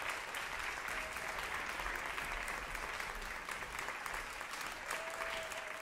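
Audience applauding steadily, a dense patter of many hands clapping at an even level.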